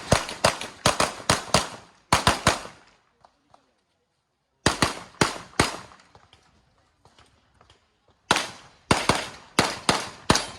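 Handgun shots fired in fast strings during an IPSC practical shooting stage: about seven quick shots in the first two and a half seconds, three more a little before the middle, and another fast string of five or six near the end, with quiet pauses between the strings.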